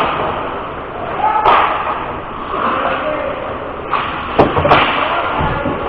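Ice hockey play: sharp slams against the rink boards, one about a second and a half in and two in quick succession near four and a half seconds, over players' voices.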